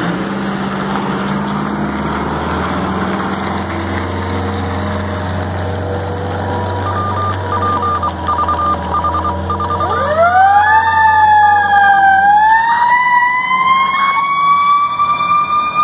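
Fire truck's engine running as it pulls out, then about ten seconds in its siren winds up into a loud rising wail that dips briefly and keeps climbing.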